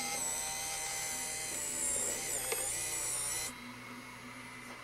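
VHS-C camcorder's tape transport motor running with a high-pitched whine that wavers in pitch, then stops abruptly about three and a half seconds in. The owner takes the tape mechanism to be sticky.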